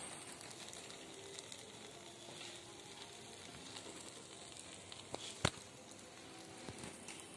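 Skewered paneer and pineapple sizzling over a charcoal grill, a steady hiss with small crackles. There is one sharp click about two-thirds of the way through.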